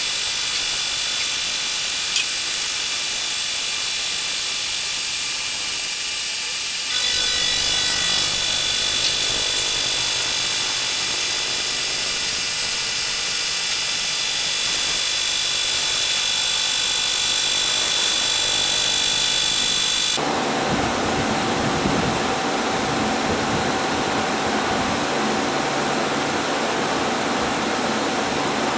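Milling machine cutting metal with a slot milling cutter: a steady, loud spindle whine with high tones over cutting noise. The sound changes abruptly about 7 seconds in and again about 20 seconds in, louder in the middle stretch and noisier at the end.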